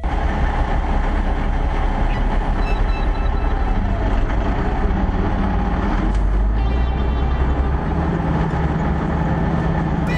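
A 1972 Brockway F361T truck's engine running as the truck drives, heard from inside the cab as a loud, steady low rumble. Its note rises a little about eight seconds in.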